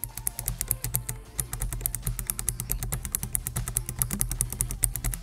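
Fast typing on a computer keyboard: a rapid, continuous stream of key clicks over a faint steady low hum.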